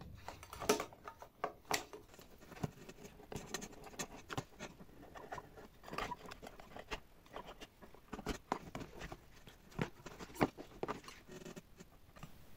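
A small hand tool scratching and scraping at the coated heating-element band of a Bosch/Siemens dishwasher circulation pump, giving irregular sharp scratches and clicks. The coating is being scraped away to bare the element's track for a resistance reading.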